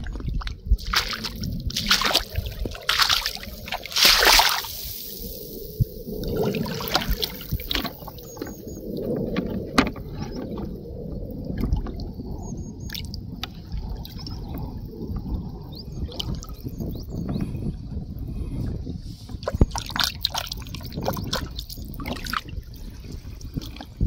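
Footsteps sloshing through shallow water over a tidal sand flat, with water trickling and splashing around the feet. Several sharper splashes come in the first few seconds, then softer, uneven sloshing.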